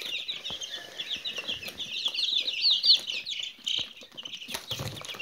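A brood of two-week-old quail chicks peeping rapidly and continuously, loudest about three seconds in, with a few knocks from the plastic feeder being handled.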